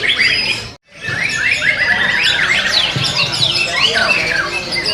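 Many white-rumped shamas (murai batu) singing at once in competition, a dense tangle of fast whistles, chirps and rapid pitch glides. The sound drops out completely for an instant just under a second in.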